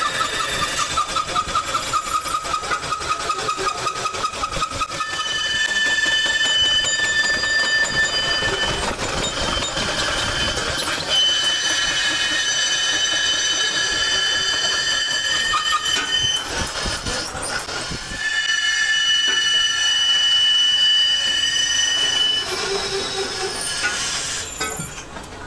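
Metal lathe turning a cast-iron pump housing, the cutting tool squealing against the iron in steady high tones. The squeal pulses about three times a second at first, shifts pitch several times as the cut goes on, and drops away near the end.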